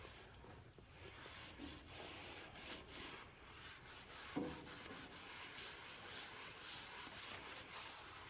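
Faint scrubbing on the steel top of a Blackstone griddle being washed with soapy water, a rubbing hiss in irregular strokes, washing off the factory protective coating. A single soft knock about four seconds in.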